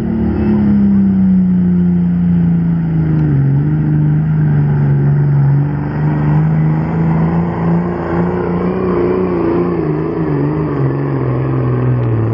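Hot Stock diesel pulling tractor at full throttle, dragging a weight-transfer sled down the track. The loud, steady engine note sags slowly in pitch as the sled's load builds, and wavers near the end as the engine lugs down.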